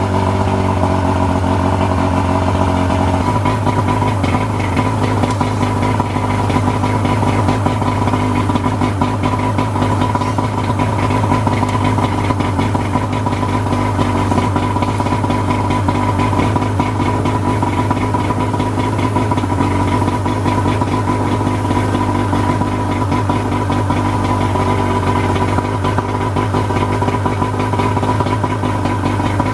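125 HP two-stroke Mercury outboard motor running steadily on flushing ears at idle, circulating stabilized fuel through the system. Its note shifts slightly about three seconds in, then holds steady.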